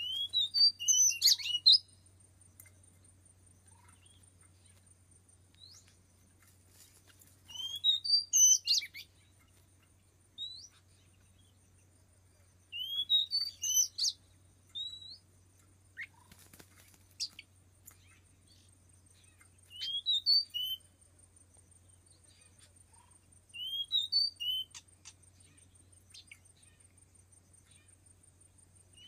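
Oriental magpie-robin (kacer) singing: short phrases of bright, rising whistled notes, repeated about every five to seven seconds.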